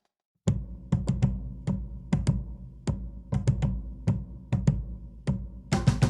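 Marching band drumline playing a cadence: sharp drum and stick strokes in an uneven rhythm over a steady low drum rumble, coming in abruptly about half a second in, with a quick flurry of strokes near the end.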